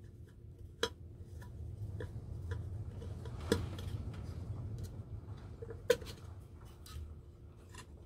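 Small screwdriver turning out screws in the metal back plate of an old Salter milk scale: scattered light metallic clicks and taps, with sharper ones about a second in, midway and just before six seconds, over a low rumble.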